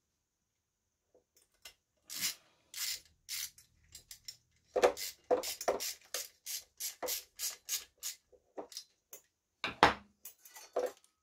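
A ratchet with a 7 mm socket clicking in short, even strokes, about three a second, as it tightens the nut holding a new thermosensor on a coffee machine's steam heater. Before it there is rustling as the parts are handled, and a louder knock comes near the end.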